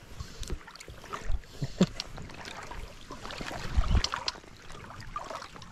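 Irregular splashing and sloshing of shallow stream water as a hooked cutthroat trout is played on a fly line, with scattered short clicks and knocks.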